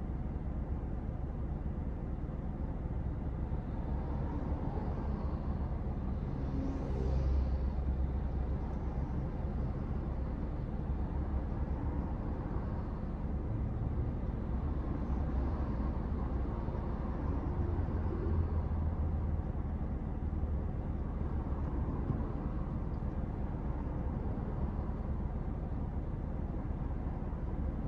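Steady low rumble inside a car's cabin while the car stands still in traffic, with the engine idling. The rumble swells slightly a couple of times, about seven seconds in and again around seventeen seconds.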